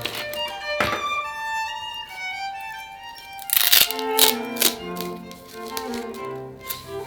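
Background music with bowed strings, overlaid with edited sound effects: a sharp click about a second in, a loud rushing burst about halfway through, and a few more clicks and knocks just after it.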